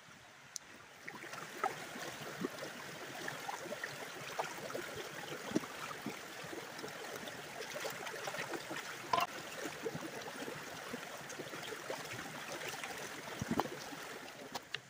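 Shallow rocky creek running, with splashing and sloshing as a wooden cutting board is scrubbed and rinsed in the water. The water sound comes up about a second in, with many small knocks and splashes throughout.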